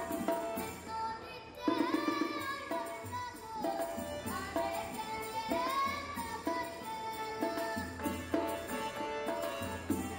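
Background music: a melody with sliding notes over a low bass that comes and goes with the phrases.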